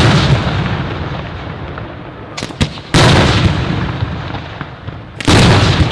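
Aerial firework shells bursting: three heavy booms about two and a half seconds apart, each trailing off in a long echoing rumble, with a couple of small sharp pops shortly before the middle one.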